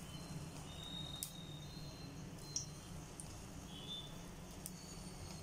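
Hot oil bubbling faintly in a pan on a gas burner, with a low steady hum underneath and a few soft clicks.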